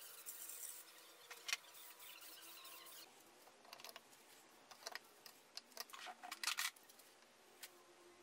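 Aerosol spray can hissing briefly as black paint goes onto a wooden speaker cabinet, with a sharp click a little later. Then small scattered clicks, taps and light scraping as a plate amplifier panel is handled on the cabinet top and traced round with a marker.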